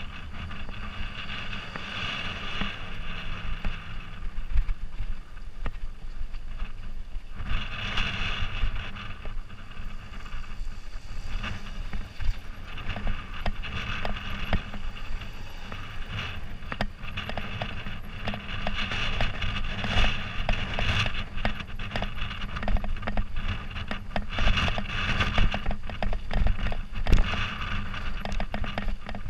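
Bicycle riding over a rough gravel and rock track: a constant rumble of tyres on stones, with rapid rattling and knocking from the bike as it jolts over the bumps.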